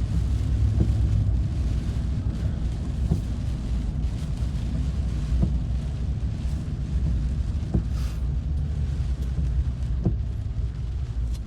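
Car driving, a steady low rumble of road and wind noise heard inside the cabin, with a faint tick about every two seconds.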